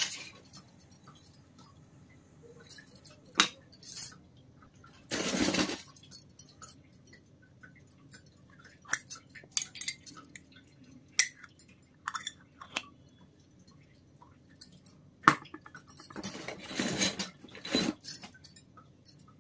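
Tiny stainless-steel toy pots and pans clinking and tapping as they are handled and set down on a wooden table. Scattered light clicks, with two longer, noisier stretches of handling, one about five seconds in and one near the end.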